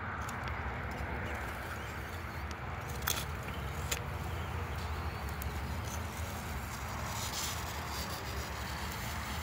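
Mussels cooking directly on live charcoal: a steady hiss over a low rumble, with two sharp pops about three and four seconds in.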